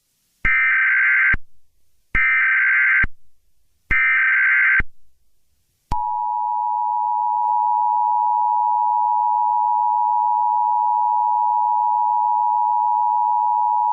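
Emergency Alert System tones: three harsh digital data bursts of about a second each, then a single steady attention tone that starts about six seconds in and holds unbroken. This is the signal that an emergency alert message is about to be read.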